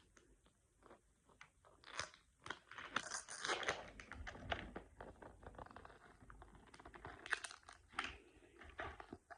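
Plastic packaging of a toy surprise capsule being torn open and unwrapped, crinkling and crackling. It comes in bursts, heaviest from about two to five seconds in and again near the end.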